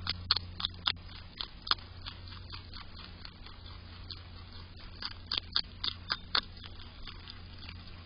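A groundhog biting and chewing a crisp celery stalk close to the microphone: sharp wet crunches in two bouts, a quick run in the first two seconds and another from about five seconds in.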